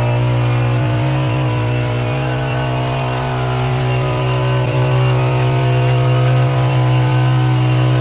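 Gas-powered vibrating power screed, its small engine running steadily and loudly while the screed is drawn across wet concrete to level the slab.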